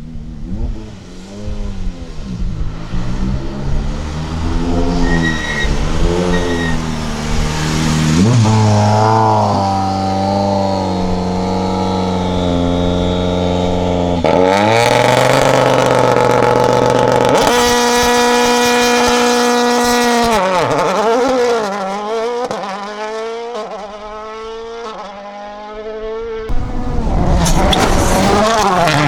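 Toyota Yaris WRC rally car's 1.6-litre turbocharged four-cylinder engine revving hard under throttle, holding high revs with sudden steps at the gear changes, then revs swooping down and up as it slows and picks up again.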